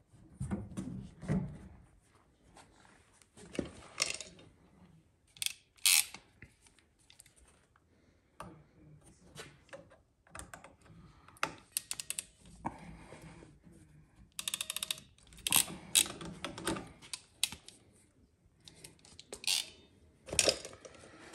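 Ratcheting crimp tool clicking as it is squeezed to crimp a fitting onto blue compressed-air tubing, with rapid runs of ratchet clicks about halfway through. Around them, scattered clicks and knocks from fittings and tubing being handled.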